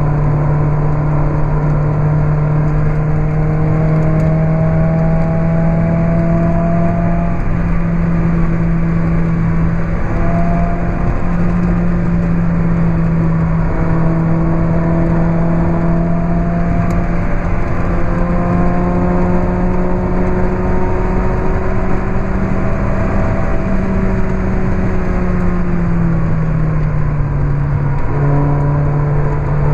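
Lotus Elise 111R's Toyota 2ZZ-GE four-cylinder engine with a Larini Stage 2 exhaust, pulling hard at track speed and heard from on board the car. Its note climbs slowly over several seconds and drops back several times as it goes through the gears.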